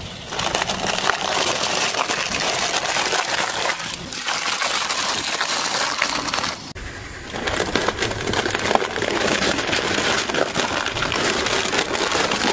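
Stacked aluminium foil trays crinkling and crushing under a car tyre: a dense run of crackles and metallic crunches. There is a brief dip about seven seconds in.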